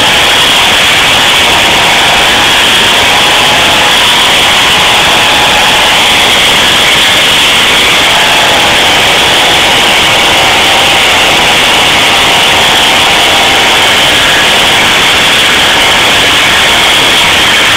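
Small two-stroke petrol chainsaw running steadily under load as its chain cuts into a hard tree stump, the engine pitch wavering slightly.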